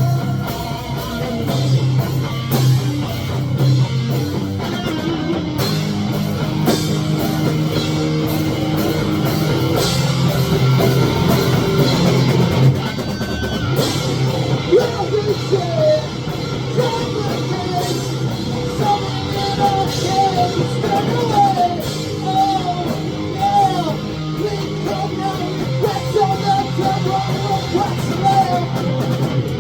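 Rock music from a full band, with electric guitars and a drum kit. From about halfway through, a lead melody line bends and slides above the band.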